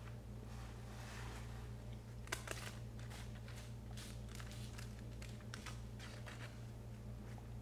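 Fast-food paper wrapper crackling and crinkling in a series of short sharp clicks as fries are picked from it, the first the loudest, over a steady low hum.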